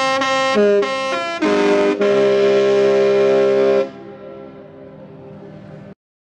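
Disney Wish cruise ship's musical horn playing a phrase of a tune: a quick run of short notes of changing pitch, then a long held multi-tone chord that stops about four seconds in.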